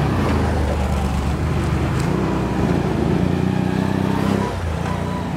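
Can-Am ATV engines revving as two quad bikes drive past one after the other. The engine note climbs, holds, dips briefly a little before the end, then rises again.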